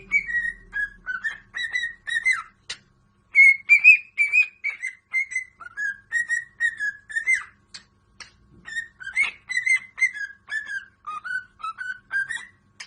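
A parrot whistling a tune: strings of short, clear whistled notes with small pitch slides, in three phrases separated by brief pauses.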